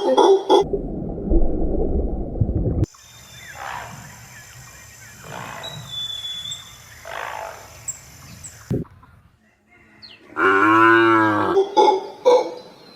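Several different animal calls in quick succession: a low, rough growl lasting about two seconds, then quieter higher-pitched calls over a steady hiss, and near the end a loud deep call that rises and falls in pitch.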